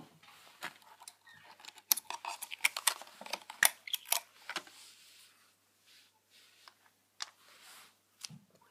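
Hands handling a boxed iPod touch and its packaging: a flurry of small clicks, taps and rustles, busiest about two to five seconds in and sparser after.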